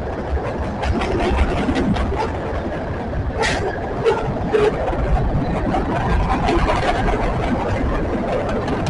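Wisconsin & Southern freight train rolling past: a steady heavy rumble with many short clicks, and a brief screech about three and a half seconds in.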